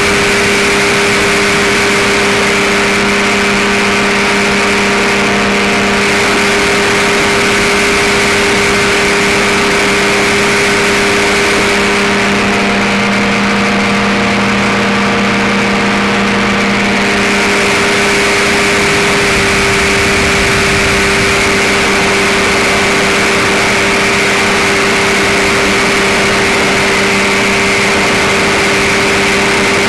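Infinity Commander powered parachute's engine and propeller running steadily in cruise flight, a constant loud drone heard close up with a rushing hiss. Midway the hiss thins for a few seconds while the drone carries on.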